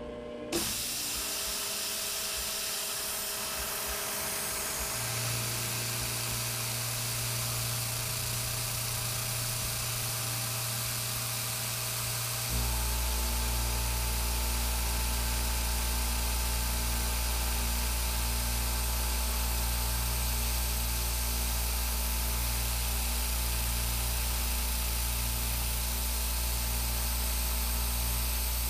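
Milling machine spindle running with an end mill cutting an oval slot into a metal plate, a steady machine whine. About twelve seconds in, a louder, deeper hum sets in and holds, with a low pulsing under it.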